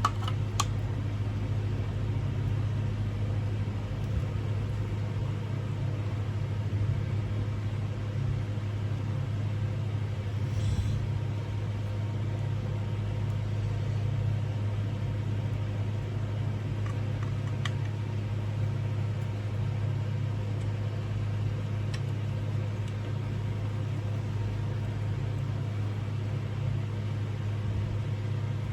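A steady low machine hum throughout, with a few faint clicks here and there.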